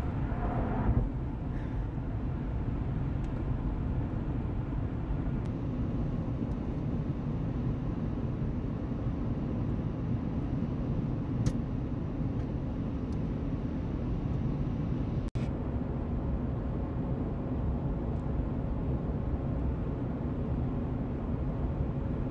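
Steady low rumble of a car driving on the highway, heard from inside the cabin: tyre and road noise with the engine underneath. It breaks off for an instant about fifteen seconds in.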